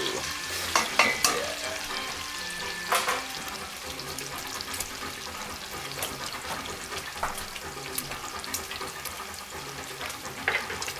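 Diced bacon frying in its rendered fat in a stainless steel pot: a steady sizzle with scattered crackles and pops, a few louder pops about a second in and again about three seconds in.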